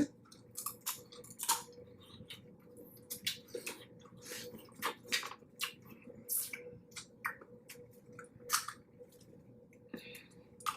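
Boiled blue crab being eaten close to the microphone: shells cracking and crunching and wet chewing, in irregular sharp clicks and crackles.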